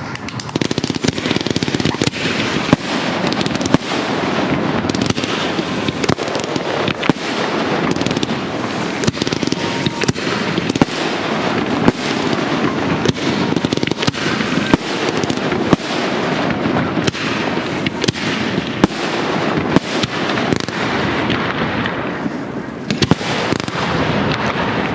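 Professional aerial fireworks display: shells bursting in rapid succession, many sharp bangs over a dense, unbroken crackle that barely lets up.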